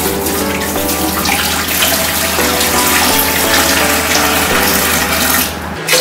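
Water pouring in a steady stream and splashing into a glass tank, with music underneath; the rush breaks off briefly near the end and then starts again.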